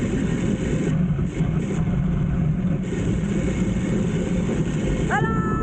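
Sky-cycle bicycle rolling along its overhead steel cable: a loud, steady rumble. About five seconds in, a person lets out one long call.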